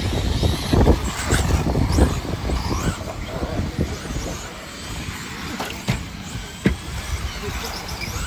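Several electric off-road RC buggies racing on a dirt track: motor whine rising and falling, with a few sharp knocks along the way.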